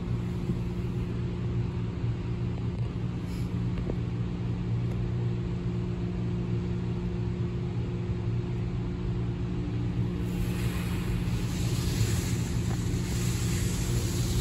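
A RYKO UltraSonic 2001 overhead car wash heard from inside the car: a steady low hum of machinery. About ten seconds in, a rushing hiss of water spray swells up over the car.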